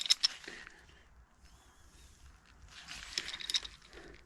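Two short spells of light clicking and rattling, one at the start and one about three seconds in, as from a small object being handled.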